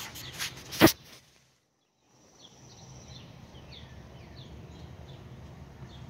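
A single sharp knock just under a second in, then the sound cuts out for about a second. After that comes faint steady background noise with small birds chirping over and over.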